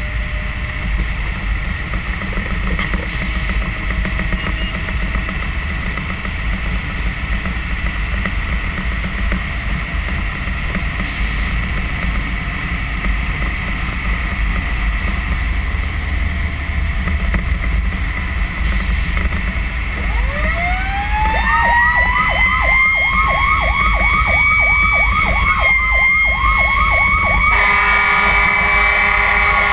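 Fire truck cab noise, the engine and road rumble steady while driving. About 20 seconds in the siren winds up in a rising wail and holds, with a fast yelping sweep over it; near the end an air horn sounds for about two seconds over the siren.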